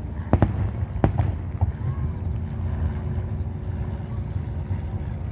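Aerial fireworks shells bursting over the harbour: two quick pairs of bangs, one about a third of a second in and one about a second in, over a steady low rumble.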